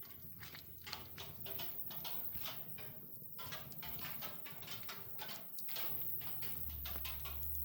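Wood fire crackling, with many irregular snaps and pops; a steady low rumble comes in near the end.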